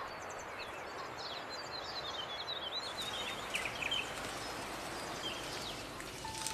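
Birds chirping and giving short trills over a steady background hiss of outdoor ambience. The chirps thin out after about four seconds.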